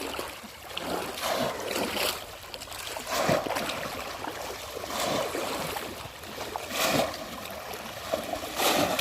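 Shallow water splashing and sloshing in repeated surges every second or two, as people wade and plunge bamboo polo fish traps.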